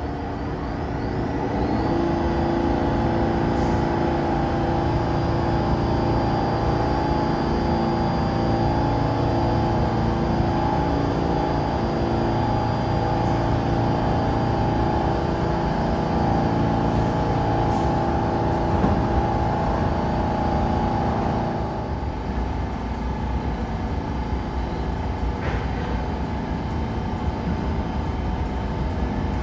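A subway train standing at the platform, its on-board equipment giving a steady hum of several fixed tones. After about 21 seconds this gives way to the rumble of another subway train approaching through the tunnel.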